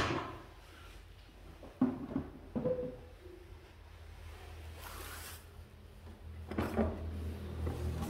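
Handling noise of objects being moved and set down: a sharp knock at the start, two more knocks about two seconds in, a brief rustle near the middle and a cluster of knocks and clatter later on, over a low steady hum.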